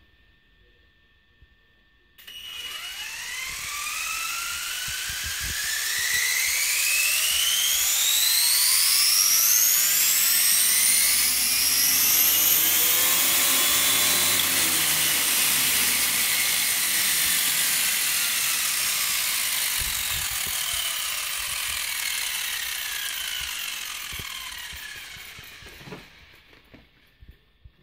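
Castle Creations 3800kv brushless motor and gear drivetrain of a 4x4 RC short-course truck, its wheels spinning free in the air to test whether the belted tyres balloon. Several whining tones start about two seconds in, climb steadily in pitch for about ten seconds to a high-speed peak, then fall slowly and fade out as the wheels wind down.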